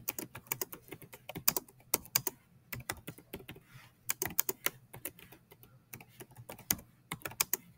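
Typing on a computer keyboard: an irregular run of keystroke clicks, with short pauses between bursts.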